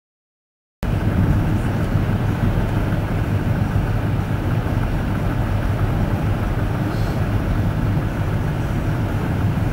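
Steady low rumble of a moving vehicle, cutting in abruptly about a second in.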